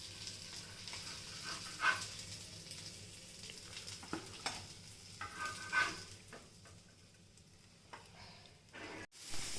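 Masala-coated seer fish pieces sizzling as they shallow-fry in oil, with a few short scrapes and knocks of a utensil against the pan.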